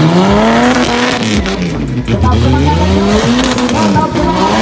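Off-road tubular buggy's engine revving hard as it churns through deep mud, its pitch swelling up and falling back in long surges about every two seconds.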